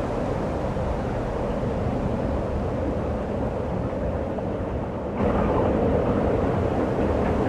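Steady rushing wind of a snowstorm, which becomes suddenly louder and brighter about five seconds in.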